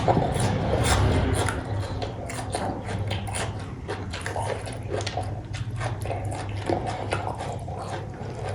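Close-up chewing and eating mouth noises, many short wet clicks and smacks at an irregular pace, from eating cooked goat head meat, over a steady low hum.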